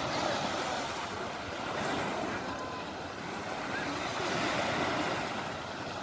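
Sea surf washing on a sandy beach with wind, a steady hiss that swells and eases gently.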